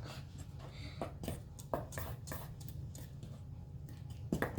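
Slime being stirred and worked in a bowl: irregular soft clicks, scrapes and squelches as the mixture starts to activate and pull away from the bowl.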